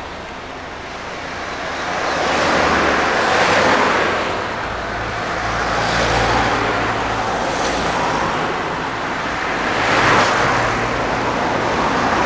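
Road traffic: several cars passing one after another, each rising to a rush and fading away.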